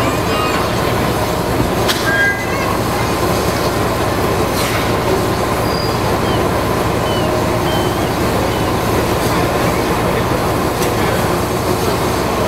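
A railway turntable slowly turning a GWR steam locomotive: a steady rumble and hiss, with a few faint short high squeaks partway through.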